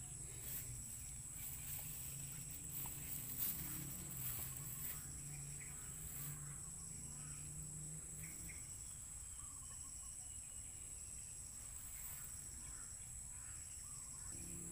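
Insects chirring in a steady high-pitched drone over faint outdoor ambience, with a low hum that fades out about eight seconds in and a few light clicks.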